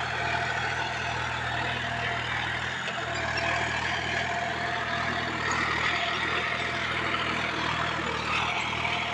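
John Deere 5105's three-cylinder diesel engine running steadily at about 1600 rpm under tillage load, in top gear of low range, holding its revs without dropping.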